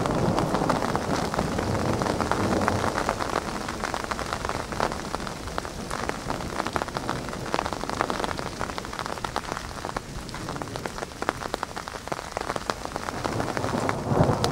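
Heavy rain falling, with many separate drops hitting. It eases a little past the middle and grows heavier again near the end.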